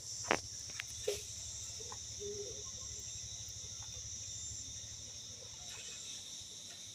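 Steady high-pitched chirring of night insects such as crickets, with three sharp clicks in the first second or so.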